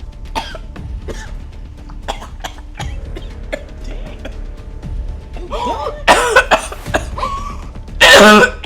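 A person coughing and gagging in a fit of choking that is being acted as a prank. The strained coughs come over and over, growing louder, with the loudest burst near the end. Background music plays underneath.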